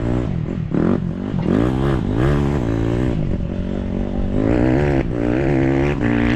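Vehicle engine driven over rough ground, its pitch rising and falling again and again as the throttle opens and closes, then holding steadier and higher near the end.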